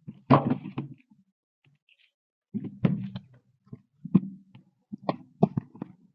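Scattered light knocks and thuds of a cardboard box and its packaging being handled, a few irregular bumps spread over several seconds.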